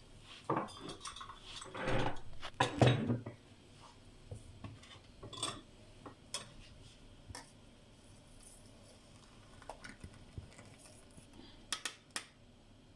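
Kitchen utensils clattering and clinking while boiled tea is strained from the pan: a busy run of knocks in the first few seconds, then occasional single clinks, with two close together near the end.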